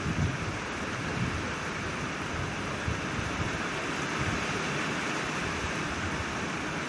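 Steady hiss of falling rain, with wind buffeting the microphone in low gusts, mostly in the first second.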